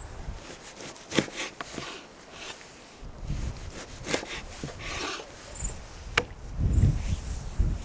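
A large chef's knife slicing lamb fat on a wooden cutting board, with several sharp knocks as the blade meets the board. A louder low rumble comes near the end.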